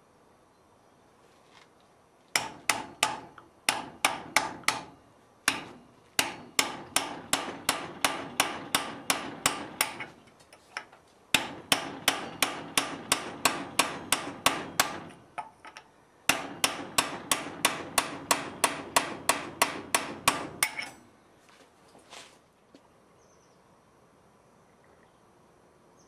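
Hammer blows on a hand-held chisel cutting into a steel block clamped in a vise: rapid sharp metallic strikes, about three a second, in four runs with brief pauses between them, then stopping a few seconds before the end.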